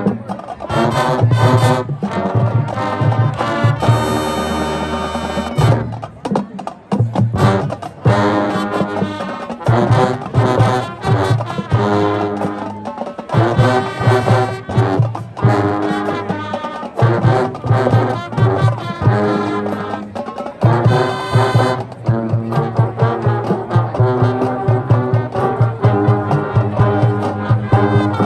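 High school marching band playing, led by trombones and trumpets over a steady drum beat, with two long held chords, one about four seconds in and another about twenty seconds in.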